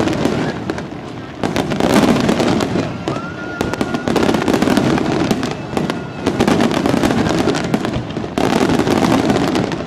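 Aerial fireworks display: dense, rapid crackling and popping of many small bursts, swelling and easing every second or two.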